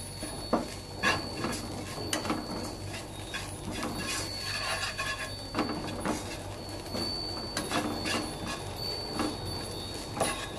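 Wooden spatula scraping and knocking around a nonstick frying pan, stirring onions, garlic and chilli over low heat: irregular short scrapes and taps.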